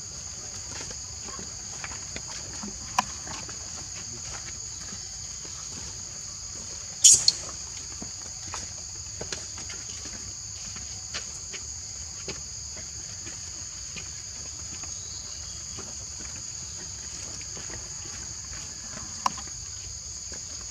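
Steady high-pitched drone of forest insects, with a few scattered sharp clicks; the loudest is a brief click about seven seconds in.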